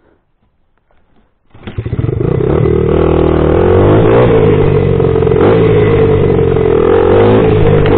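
Single-cylinder four-stroke engine of a 2000 Honda XR80R dirt bike cutting in loudly about a second and a half in, then revving and running as the bike pulls away.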